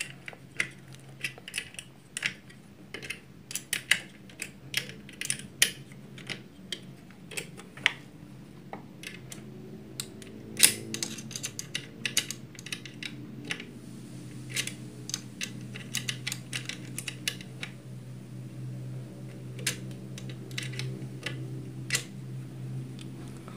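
Irregular light metallic clicks and taps, a few a second, from hands and a small spanner working at a sewing machine motor's mounting bolts and belt. A low steady hum runs underneath and grows stronger in the second half.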